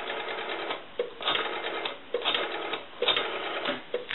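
Telephone line analyzer clicking about once a second, each click followed by a short buzzing tone. The faulty telephone is seizing the line and then dropping it again, as though hanging up by itself.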